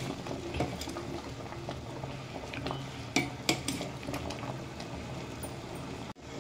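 Bottle gourd pieces boiling in jaggery syrup in a metal pot, bubbling steadily as a steel ladle stirs them. The ladle clinks against the pot several times, the sharpest two clinks about three seconds in.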